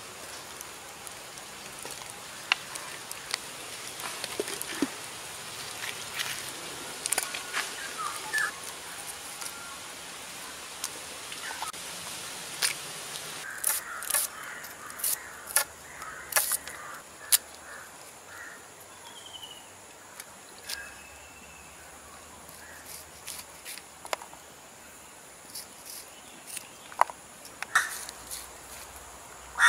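A knife slicing onions and green chillies held in the hand, giving scattered sharp crisp clicks, with birds calling and a steady high hiss behind.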